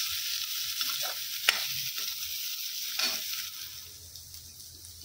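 Sliced onions and garlic cloves sizzling in hot oil in a kadhai, being sautéed until lightly browned, with a steel spoon scraping and clicking against the pan as they are stirred. The stirring stops and the sizzle grows fainter about three and a half seconds in.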